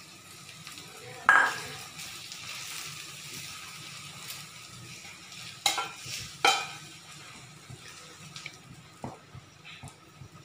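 Roasted semolina tipped into a kadhai of sautéed vegetables and stirred with a spatula, the pan sizzling softly. There is a loud knock against the pan about a second in, two more sharp knocks a little after halfway, and lighter scraping ticks near the end.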